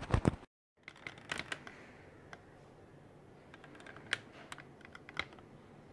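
Scattered light clicks and ticks, several close together just after a brief cut to dead silence, then sparser, over a faint steady background hum.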